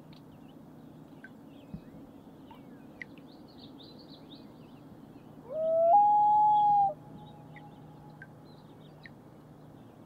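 A common loon gives one short wail about five and a half seconds in: it slides up, steps higher and holds a clear note for about a second, then trails off faintly. Small birds chirp faintly in the background.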